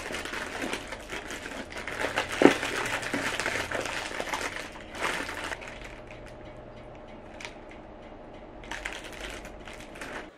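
Cereal box and its plastic inner bag being handled and torn open, with dense crinkling and one sharp snap about two and a half seconds in. It goes quieter for a few seconds, then brief crinkling again near the end.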